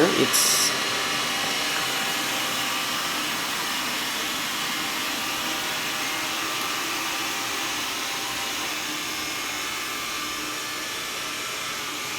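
Xiaomi Mi Robot Vacuum running: the steady whir of its suction fan and brushes, with a brief high hiss just after the start. It grows slightly quieter toward the end.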